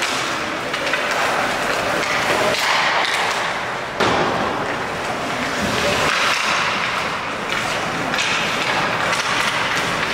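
Ice hockey play on a rink: skate blades scraping and carving the ice, with the clack and knock of sticks and puck. A sharp knock comes about four seconds in.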